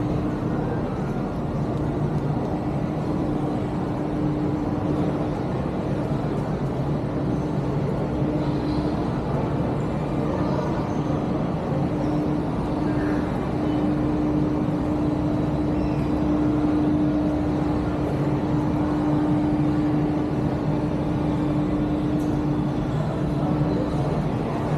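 Steady indoor ambience of a large shopping mall: a constant low hum with a faint held tone from the building's ventilation and air conditioning.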